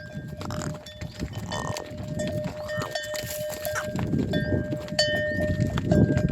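Cowbells on livestock clanking and ringing repeatedly at an irregular pace, with low rustling and shuffling underneath.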